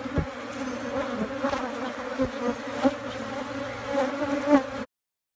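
Honeybees buzzing around an open hive frame, a steady hum with a couple of soft knocks. It cuts off suddenly near the end.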